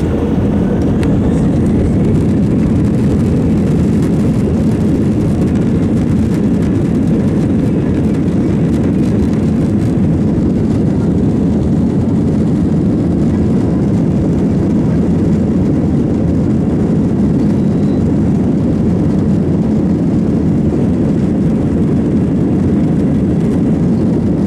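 Airliner jet engines running with the rumble of the wheels on the runway, heard from inside the cabin during the takeoff roll. The noise is a loud, steady, deep rumble.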